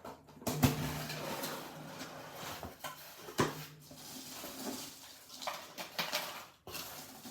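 A cardboard box being opened and its packaging handled: rustling and scraping with a few sharp knocks, the loudest about half a second in and another about three and a half seconds in.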